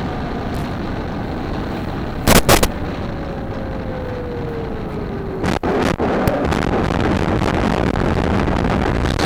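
Onboard sound of an RC model jet flying low: a steady rush of wind and airframe noise, with two loud crackling bursts about two seconds in. A thin motor tone falls in pitch as the throttle comes back, and from about halfway the rushing gets louder and rougher as the plane is down at grass level.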